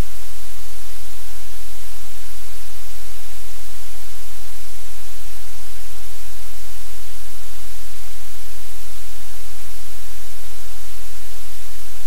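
Loud, steady static: an even hiss across the whole range over a low electrical hum, unchanging throughout, with no distinct sound of the dogs.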